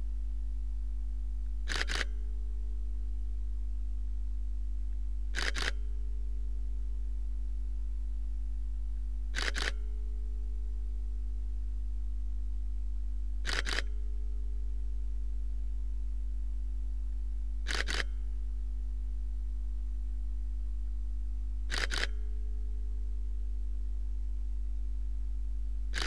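Camera shutter clicking, each a quick double click, six times about every four seconds, over a steady low hum.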